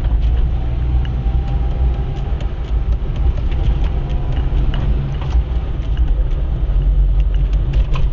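Car driving along a rough country road: a steady low rumble of engine and tyres, with scattered light ticks and rattles.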